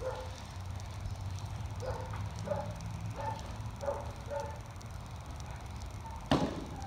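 A dog barking repeatedly in short, evenly spaced barks, about one every half second to second, while facing a decoy during bite work. Near the end comes a single sharp smack, the loudest sound.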